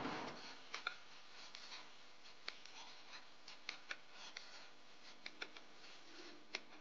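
Metal spoon stirring thick cooked greens in a pot: faint scraping with scattered sharp clicks of the spoon against the pot.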